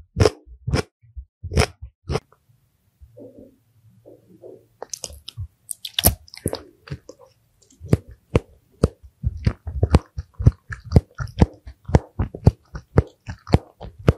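Close-miked chewing of crisp, crunchy food with the mouth closed. A few crunches come at first, then a softer lull a couple of seconds in, then steady crunching at about two to three chews a second.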